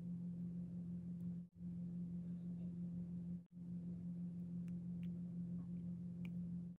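A steady low hum that cuts out briefly twice. In the second half come a few faint light clicks as a small plastic cupcake-shaped piece is handled in the fingers.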